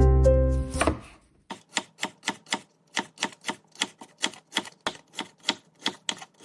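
Knife chopping on a cutting board in quick, even strokes, about four a second, after background music fades out in the first second.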